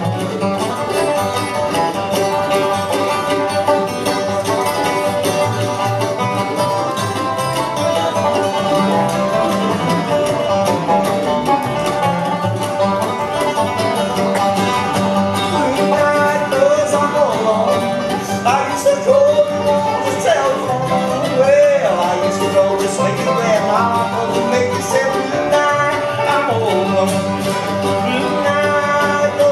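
Bluegrass band playing live: banjo and acoustic guitar picking alongside a mandolin, with some bending melodic lines in the middle.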